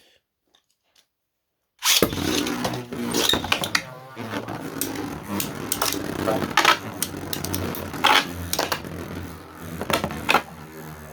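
Beybladesa launched into a stadium about two seconds in, then spinning with a steady whirring hum and grinding, broken by repeated sharp clashes as they strike each other.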